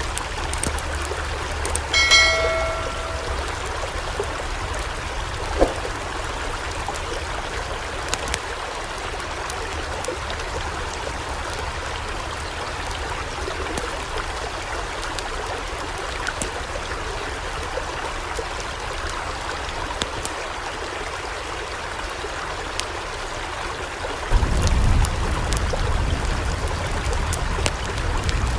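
Floodwater rushing steadily. A short pitched tone sounds about two seconds in, and a low rumble joins near the end.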